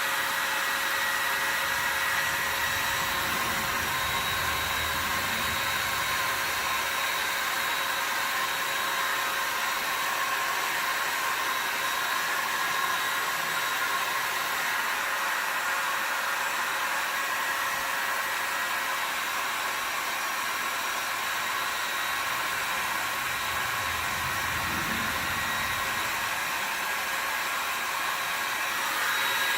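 Handheld hair dryer blowing steadily, a rush of air with a constant motor whine, warming a vinyl decal to dry off the water left from a wet install.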